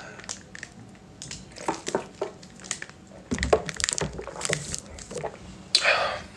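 Small, scattered mouth clicks and lip noises from a person close to the microphone, ending in a short breathy puff of air near the end.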